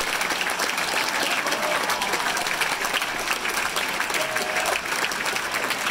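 Large audience applauding steadily: dense, even clapping from many hands.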